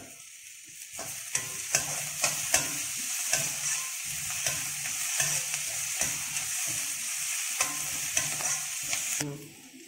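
Chopped onions and green chillies sizzling in hot oil in an aluminium kadai while a perforated metal ladle stirs them, scraping and clicking against the pan. It starts about a second in and stops abruptly near the end.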